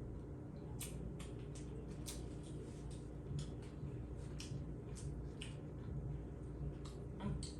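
Close-miked chewing and mouth sounds of a birria taco being eaten: short, irregular wet clicks and smacks, about two a second, over a low steady hum.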